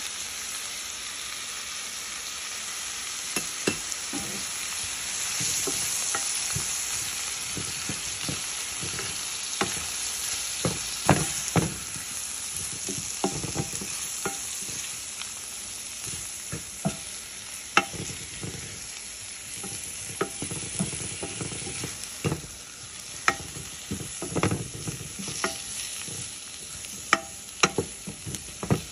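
Onions, peppers and spices sizzling as they fry in oil in a pot, with a wooden spoon stirring them and knocking sharply against the pot again and again, the knocks coming more often in the second half.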